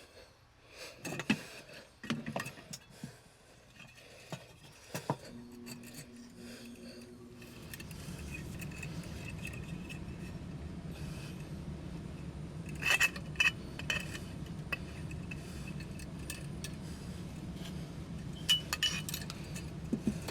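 Small metal parts of a gas water heater's burner assembly clinking and scraping as it is taken apart by hand, in scattered sharp clinks. About eight seconds in a steady low rushing noise starts and carries on underneath.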